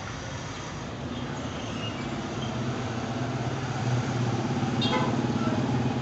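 A steady low engine hum, like a motor vehicle running nearby, growing louder through the second half, with a short click about five seconds in.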